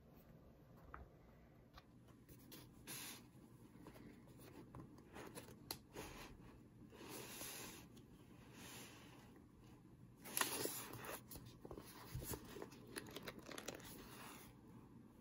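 Faint rustling and light tapping of a hand-sewn text block of antiqued paper signatures being handled, with a louder rustle about ten seconds in.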